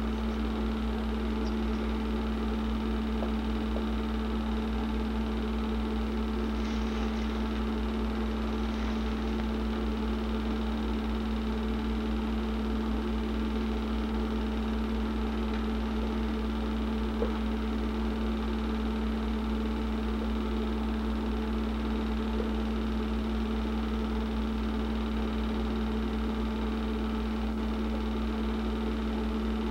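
Film projector running: a steady mechanical drone of its motor and fan, with an even low hum and a strong steady tone that do not change.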